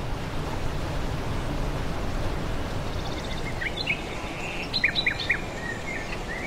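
Steady rush of river whitewater, with small birds chirping over it from about halfway through: a few short, quick chirps, most of them clustered about five seconds in.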